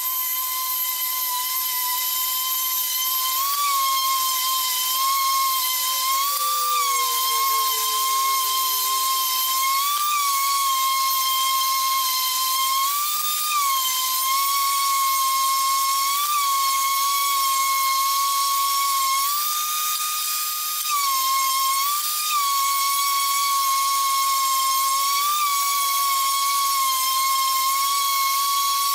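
A small high-speed motor runs with a steady high-pitched whine. Its pitch rises briefly and falls back about every three seconds.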